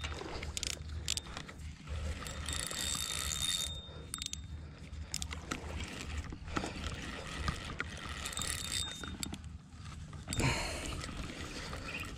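Spinning reel being cranked in spells of a second or two, its gears and line roller whirring with a faint thin whine, as a hooked catfish is reeled in. A brief louder rush of noise comes near the end.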